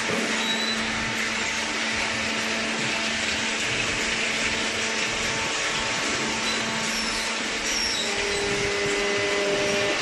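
Hydraulic cardboard baler machinery running: a steady whirring machine noise with a constant hum. A second, higher hum joins near the end.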